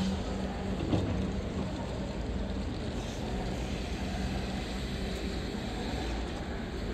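Steady low rumble of vehicles and machinery, with a faint steady hum and a single knock about a second in.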